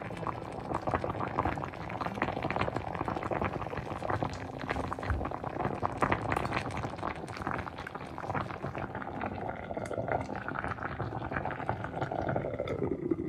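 A pot of thick Ofada rice fufu (tuwo) bubbling as it cooks, a dense crackle of small pops and plops that continues steadily and softens a little in the last few seconds.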